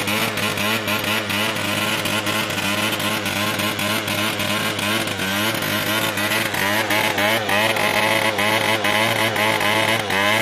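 Keeway LC scooter's liquid-cooled two-stroke engine revved hard, the revs rising and falling in quick blips.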